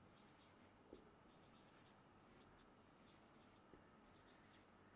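Faint strokes of a marker pen writing on a whiteboard, with a couple of small taps of the marker against the board.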